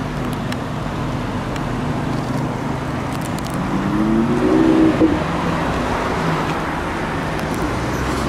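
Cars driving past close by, engines running over road noise; about four to five seconds in, one engine revs up, rising in pitch, the loudest moment.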